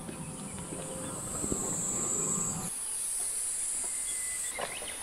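A steady, high-pitched chorus of insects that shifts a little higher about two and a half seconds in, when a low hum under it stops. A few light footsteps near the end.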